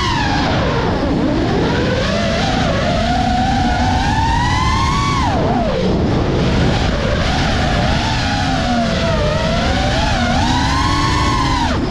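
FPV racing quadcopter's brushless motors and propellers whining, the pitch climbing and then dropping sharply as the throttle is changed: about a second in, around the middle, and near the end. A dense rush of air noise sits underneath.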